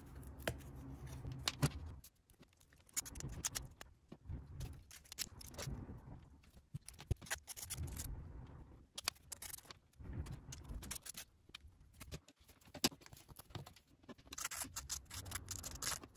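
Small laser-cut plywood puzzle pieces being handled: light clicks and snaps as parts are pushed out of the wooden sheet and pressed together. Near the end comes a run of quick scratching as a wooden piece is rubbed on sandpaper.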